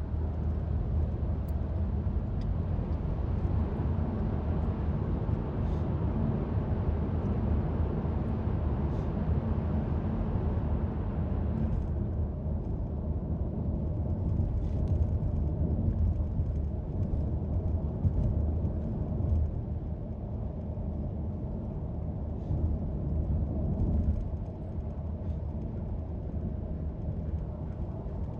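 Steady low rumble of road vehicles: engine and tyre noise. A higher hiss fades out about twelve seconds in.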